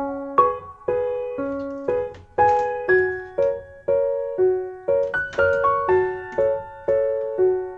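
Background music: a gentle piano playing a slow melody of single notes and chords, each note struck and left to fade.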